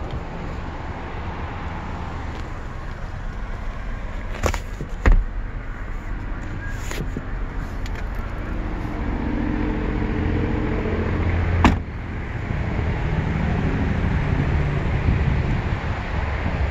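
Steady rumble of outdoor traffic and background noise, broken by a few sharp clicks and knocks; the loudest comes about five seconds in and another about twelve seconds in.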